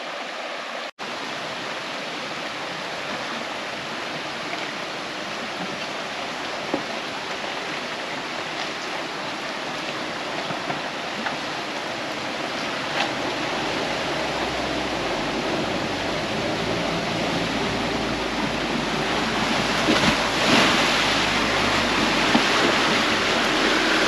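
Swollen creek rushing over a flooded ford after heavy rain: a steady rush of water that grows gradually louder, with a low rumble joining about halfway through.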